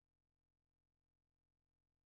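Near silence: the audio track is essentially empty.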